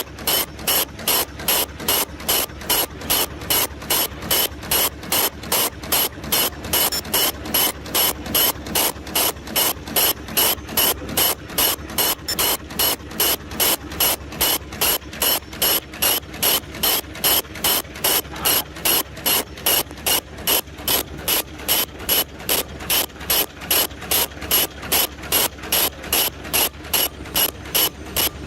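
Automatic face-mask machine with inward ear-loop folding running at a steady pace: a sharp mechanical clack repeating about three times a second, evenly spaced.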